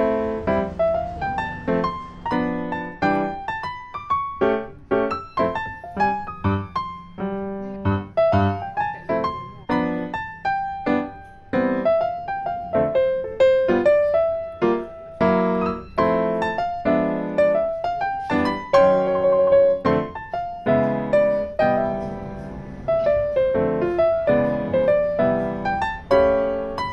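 Background piano music: a steady run of struck notes, each ringing and fading, with a melody over lower chords.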